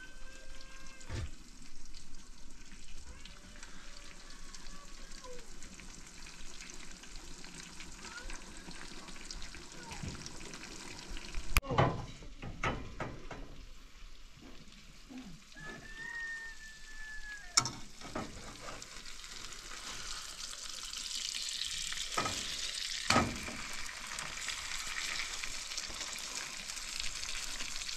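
Fish frying in oil in a frying pan, sizzling steadily and growing louder in the last third, with a metal spatula knocking and scraping against the pan a few times.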